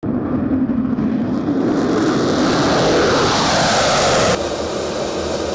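Fighter jet's engine noise growing louder and brighter, its pitch rising and then sliding down as the jet passes. About four seconds in it drops abruptly to a quieter, duller jet rumble.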